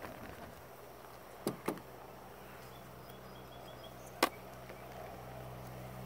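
Sharp wooden knocks from handling a beehive's box and frames: two in quick succession, then a sharper single one, over a low steady hum.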